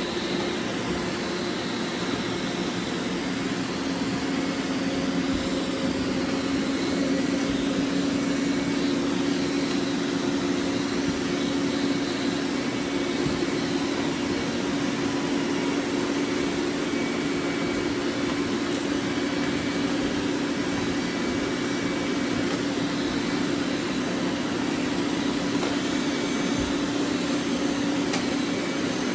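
Several robot vacuums running at once: a steady whir of suction motors with a constant low hum under it.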